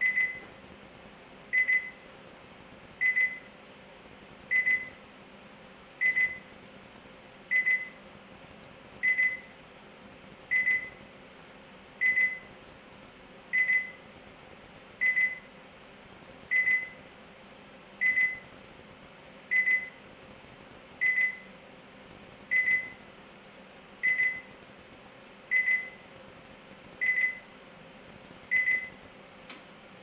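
PS134 Pro air-conditioning service station beeping: a single short high beep repeated about every one and a half seconds, steady and even, while the machine runs its cycle.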